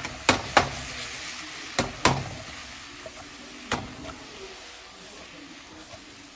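Chicken wings sizzling in a stainless steel pot as the pot is shaken and tossed on an electric coil stove. Five sharp metal knocks from the pot in the first four seconds, then only the sizzle, fading slightly.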